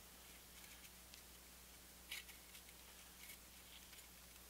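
Near silence, with a few faint light clicks as thin metal bearing shims are handled and set into place under a bearing cap.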